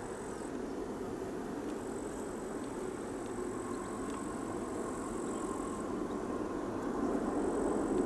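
The jet engines of a Boeing 747-8, four GEnx turbofans, heard from a distance as a steady engine noise that slowly grows louder. A faint whine comes in about three seconds in.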